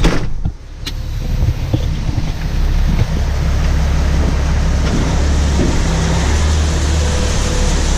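Semi truck's diesel engine running steadily with a low rumble.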